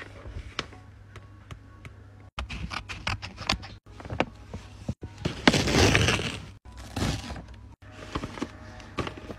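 Handmade paper bag being torn open across the top, with sharp crackling and crinkling of the paper and a longer, louder tear a little after halfway.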